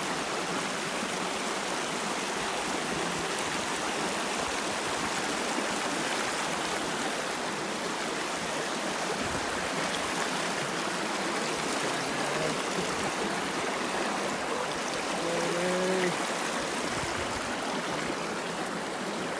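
Moorland stream flowing, a steady rush of running water.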